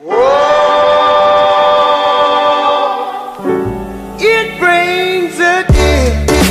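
Background music. A held chord swells in, then a bass line and a wavering sung melody join three to four seconds in, and heavy drum beats start near the end.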